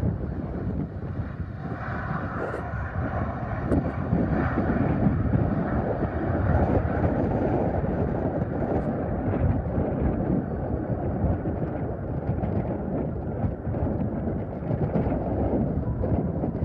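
Wind buffeting the microphone over the distant, steady roar of a Boeing 737-800's CFM56 jet engines during its landing rollout, swelling for several seconds in the first half.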